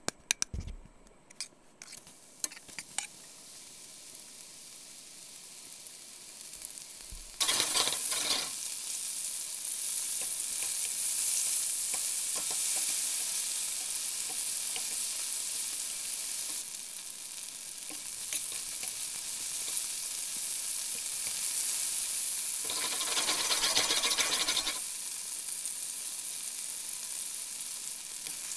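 Flour-dredged chicken pieces frying in hot oil in a stainless steel skillet. Metal tongs click a few times at first. Then a sizzle builds as the pieces go into the oil, jumps louder about seven seconds in, and stays a steady hiss, swelling briefly near the end as the pieces are stirred.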